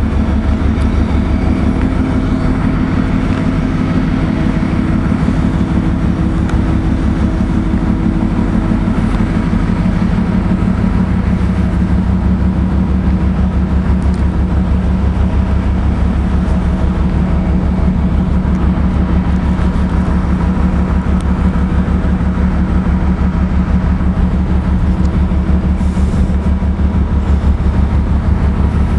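Docked cruise ship's machinery running: a loud, steady, low mechanical drone with a fast, even pulse under it. About ten seconds in, the mix of tones shifts a little lower.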